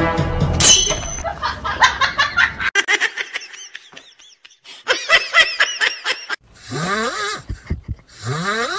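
A person laughing in quick, repeated bursts, with sounds that rise in pitch in the second half.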